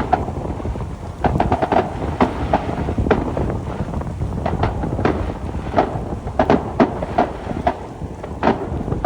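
Fireworks exploding in quick, irregular succession: sharp bangs, several a second at times, over a continuous low rumble of booms, with wind noise on the microphone.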